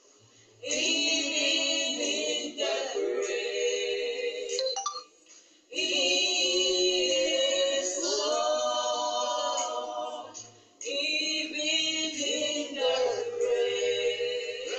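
A group of voices singing a worship song together, in long phrases broken by short pauses about five and ten seconds in.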